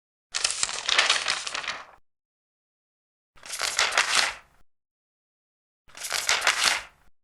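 Three turns of a large paper page, each a rustling swish of about a second, the first a little longer, separated by silence.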